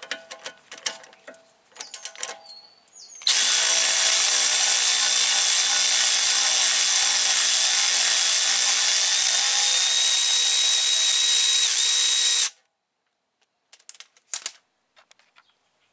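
Cordless Milwaukee power wrench running steadily for about nine seconds on the 16 mm sway-bar end-link nut, with a high whine on top, then stopping suddenly. A few light clicks and rattles of the socket on the nut come before it.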